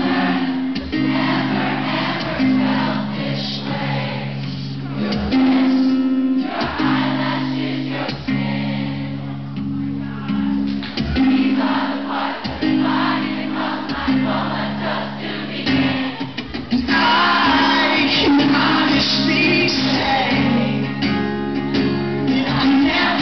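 Two acoustic guitars strumming chords in a live band performance, with singing over them, recorded from the audience in a concert hall. The sound gets fuller and brighter about two-thirds of the way through.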